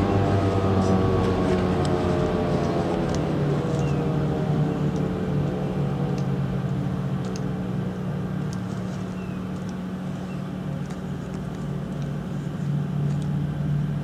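Federal Signal 2001-DC electromechanical siren winding down after its test, its multi-toned wail gliding slowly lower and fading away over several seconds. A steady low hum runs underneath.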